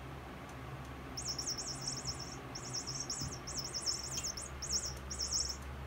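Electronic mouse cat toy chirping: runs of quick, high, up-and-down squeaks that start about a second in, break off briefly and start again, as the kittens bat it around.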